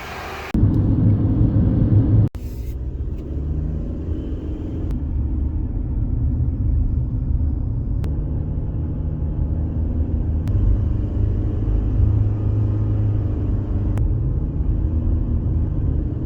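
Car driving: a steady low rumble of road and engine noise, louder for about the first two seconds, with a few faint ticks.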